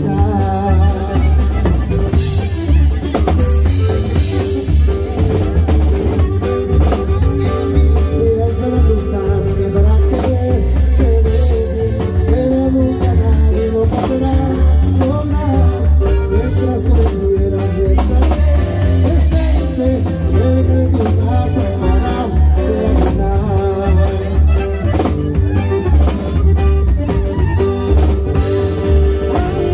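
Norteño band playing live, led by a button accordion over drums and a steady bass line.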